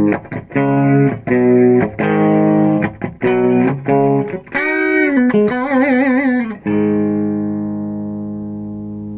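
Electric guitar with heavy distortion, a Fender American Performer HSS Stratocaster: rhythmic chord stabs for about four seconds, then a bent note with wide vibrato, then a chord left ringing and slowly dying away. It shows the high-gain sound for rhythm and solos.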